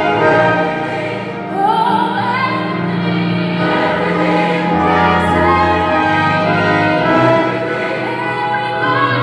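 Mixed choir singing a hymn, with a female soloist singing a melody line into a microphone over the sustained choral harmony.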